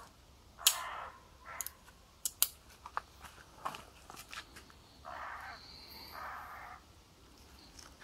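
Victorinox Farmer X Alox reamer working against a bone, with one sharp crack just under a second in and scattered lighter clicks as the multitool is handled. Two longer rasping noises come near the end.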